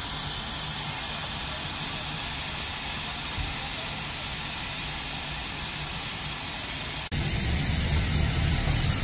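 Steady hiss of steam from a standing Bulleid Battle of Britain class light pacific steam locomotive. About seven seconds in it cuts abruptly to a louder low rumble of a diesel multiple unit's engine running.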